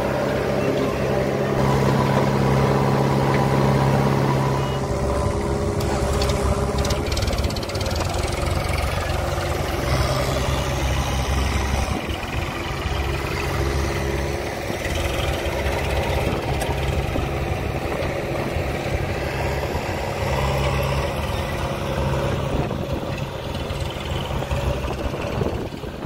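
Diesel engines of a JCB backhoe loader and an Eicher 551 tractor running: a steady engine note whose pitch and loudness shift a few times.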